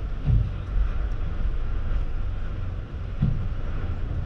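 Passenger ferry's engines running with a steady low drone and rumble. Two short low thuds come about a third of a second in and again a little after three seconds.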